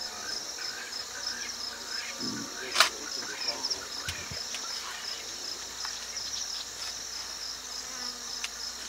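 A steady, high, pulsing insect chorus in the bush, with one sharp click a little under three seconds in.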